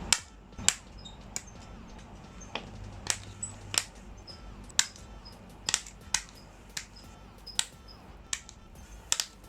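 Plastic model kit parts being clipped and handled: sharp, irregular clicks and snaps, one or two a second, of nippers cutting styrene parts from the runners and pieces snapping together.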